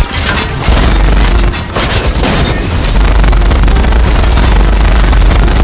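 Loud burst of rapid gunfire and explosion sound effects over a heavy low rumble.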